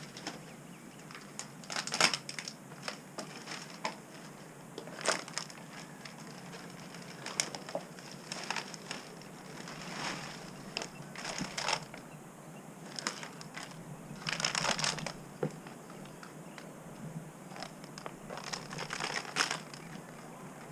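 Irregular crunching and crackling, scattered sharp cracks with a longer rustling cluster past the middle; the loudest crack comes about two seconds in.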